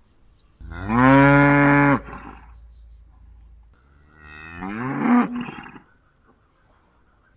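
Cows mooing: two moos, the first loud and held steady for over a second before stopping sharply, the second softer, starting about four seconds in with its pitch rising.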